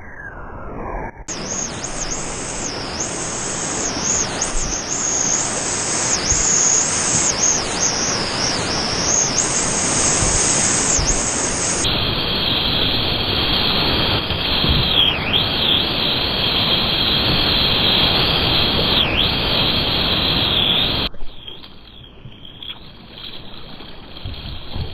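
Loud, steady rush of whitewater from a river rapid close around the paddleboard, with a high steady whine over it. About 21 seconds in it cuts abruptly to the quieter swirl of calmer flowing water.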